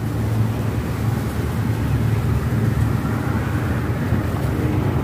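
A steady, low mechanical rumble with a hiss over it, like a motor vehicle engine running, growing slightly louder toward the end.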